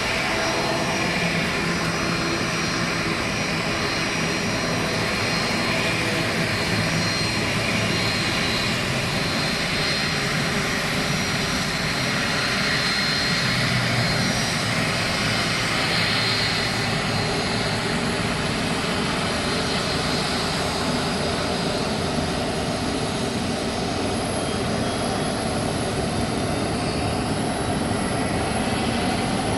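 Boeing 737 jet engines running steadily: an even rushing noise with a thin high whine, holding at one level throughout.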